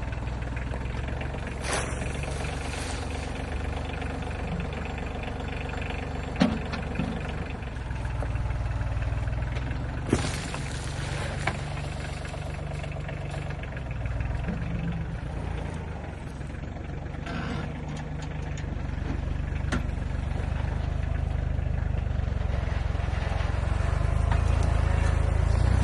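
An engine idling with a steady low rumble that grows louder toward the end, with a few sharp knocks over it.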